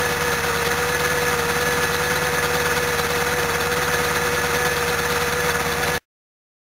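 Toyota HiAce van's carburetted engine idling steadily after being flooded with petrol. The sound cuts off abruptly about six seconds in.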